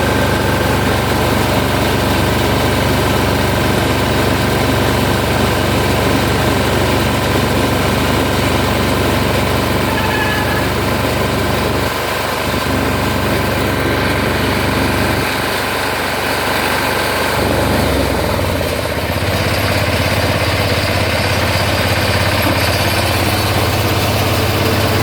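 The 7.5 hp diesel engine of an ISEKI RBX810 ride-on straw roll baler running steadily, with a thin steady whine over it. The engine's low hum drops out briefly twice and shifts to a different note about three quarters of the way through.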